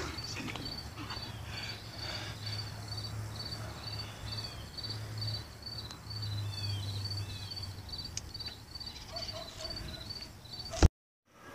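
Insects chirping in a steady high rhythm, about two to three chirps a second, over a low steady hum, with a few faint falling calls partway through. Near the end a sharp click, then the sound cuts out.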